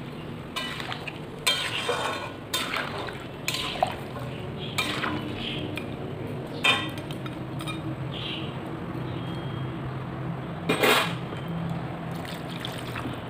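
Long wooden spatula stirring and scraping pork pieces in an aluminium wok, knocking against the pan about once a second at first, then twice more, the last knock the loudest, over a steady low hum.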